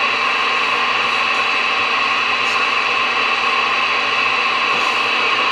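Steady hiss of CB radio static from the receiver speaker between transmissions, even and unbroken.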